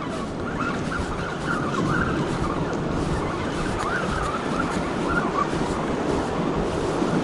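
Steady rush of ocean surf and wind buffeting the microphone.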